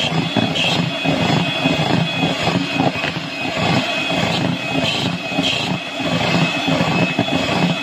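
Electric hand mixer running steadily, its beaters whipping cake batter in a bowl. The batter is being beaten until it turns thick and pale.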